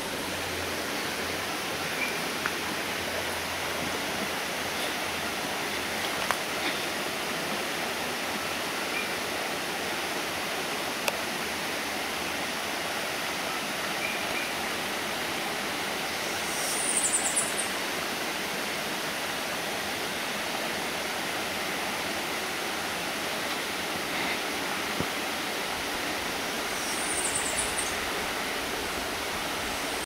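Steady rush of flowing stream water. Two brief high-pitched chirps come through it, about halfway and again near the end.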